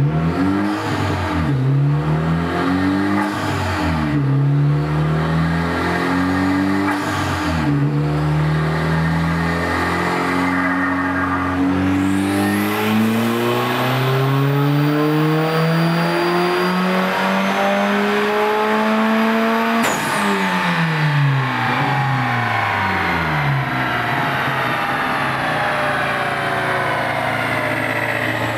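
Dodge Caliber SRT-4's turbocharged 2.4-litre four-cylinder on a chassis dyno: revved up and shifted through the lower gears in the first several seconds, then a long full-throttle pull with the engine pitch climbing steadily for about twelve seconds alongside a faint high whine. The throttle is cut abruptly, the engine winds down and settles to idle near the end.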